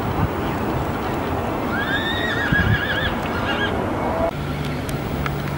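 A horse whinnying once: a high call that rises, holds, then wavers for about two seconds, over steady background noise.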